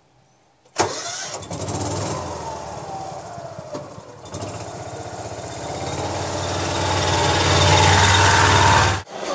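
A John Deere Gator utility vehicle's engine starts suddenly about a second in and runs. It grows steadily louder as the Gator drives up and over, then cuts off abruptly near the end.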